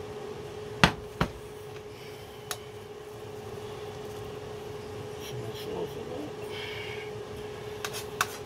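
Metal spoon knocking and scraping against a metal frying pan as curry is served out of it, with two sharp knocks about a second in and lighter clicks and scraping after. A steady hum runs underneath.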